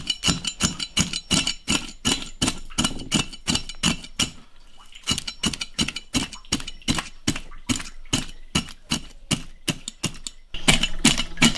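A cleaver knocks and scrapes the hard, bony scutes off a sturgeon's back on a wooden chopping block. The strokes are quick and sharp, about three or four a second. The scutes are so hard that it takes forceful strikes to knock them off.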